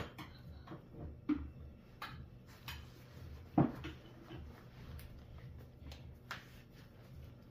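A few scattered light knocks and clicks of objects being handled, the loudest about three and a half seconds in, over a low steady hum.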